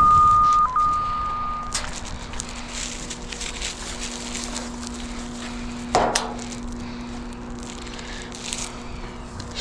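Cable locator receiver sounding a steady high tone for about two seconds, dipping briefly in pitch, then cutting out. After that comes a low steady hum, with scattered crackles and light knocks from handling and footsteps.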